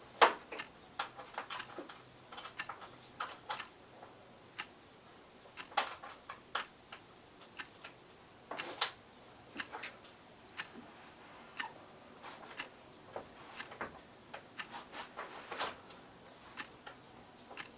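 Irregular sharp clicks and light knocks of hard plastic and metal as uPVC window hinge hardware is handled, with one louder click right at the start.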